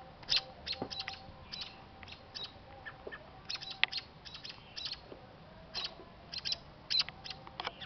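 American robins giving repeated sharp alarm calls, short high notes in quick clusters of two or three, the scolding of parent birds defending their nest.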